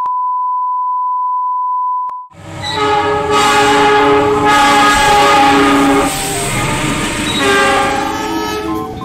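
A steady 1 kHz test tone that cuts off after about two seconds, then diesel locomotive air horns sounding long, loud multi-note chords, the chord changing several times, over the rumble of a passing train.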